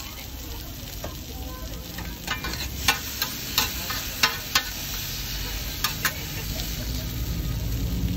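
Meat sizzling on a flat griddle, growing a little louder toward the end, with about nine sharp clicks and knocks in the middle.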